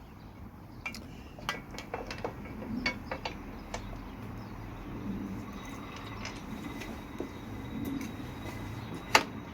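Light clicks, taps and clinks of a metal rack bar and plate being handled and fitted into place, with a sharper click about nine seconds in.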